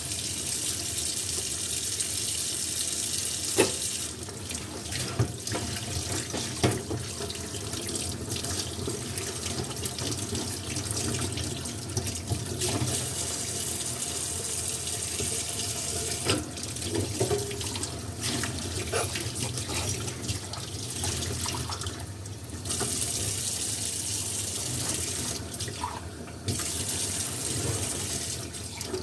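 Tap water running steadily into a sink while dishes are washed, with scattered clinks and knocks of dishes being handled. The running water breaks off briefly a few times.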